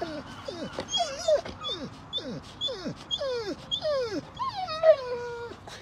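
Rottweiler whining in a tantrum to get other dogs to notice him: a string of short whines that drop steeply in pitch, about two a second, ending in a longer whine that slides down and holds. A brief sharp sound comes near the end.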